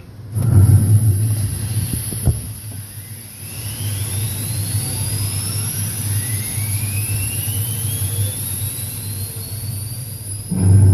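Rocket launch from an old LP record: the engines ignite with a loud rumble just after the countdown reaches one. A sharp crack comes about two seconds in, then two whines rise slowly in pitch over the steady rumble, and a louder swell comes near the end.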